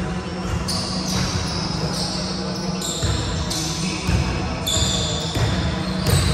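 Children playing a ball game on a hardwood gym floor: a mix of shouts and chatter with the thuds of a bouncing ball, echoing in a large hall.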